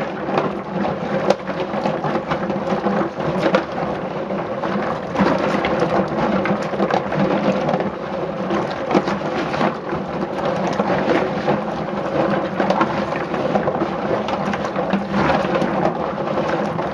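Black walnuts in their shells churned by hand in a stainless steel sink of water: a continuous clatter of many small clicks as the shells knock together and against the sink, with water sloshing. The clatter is loud because the shells are getting clean.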